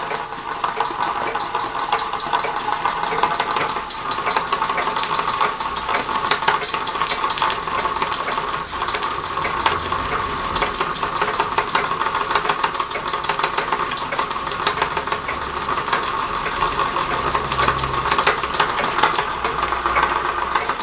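Castle Products Model B toy steam engine running slowly, its flywheel turning with continuous ticking over a steady hiss. The owner puts the slow running down to lack of steam pressure, with the loose safety valve venting steam.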